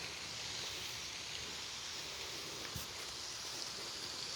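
Steady outdoor background hiss, with one small click about three seconds in.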